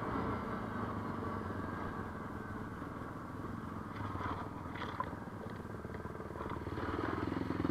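ATV engine running steadily, with a few light knocks or clatter in the middle; it revs up near the end.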